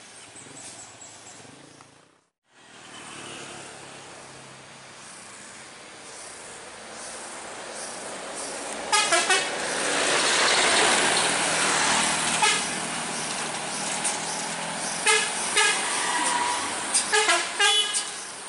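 A decorated light truck drives up and passes close by, its engine and tyre noise swelling to a peak about halfway through. A horn toots in quick repeated bursts, first about halfway through and then several more times toward the end.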